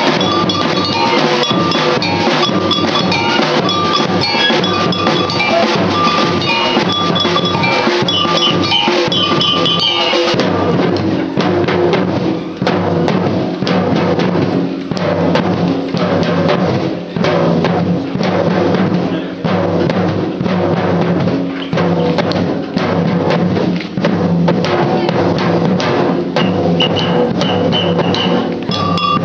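Samba percussion band playing a steady rhythm on surdo bass drums and snare drums.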